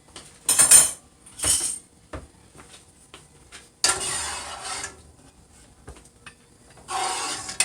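Kitchen utensils and pots clinking and scraping in several short bursts, with a longer rustling scrape about four seconds in and another near the end.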